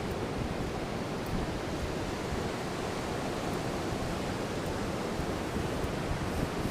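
Sea surf washing steadily onto a beach: a continuous rush of breaking waves with a deep low rumble.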